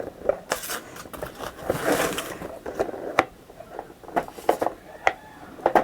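Packaging being handled: short rustling with scattered sharp clicks and light knocks, busiest about two seconds in.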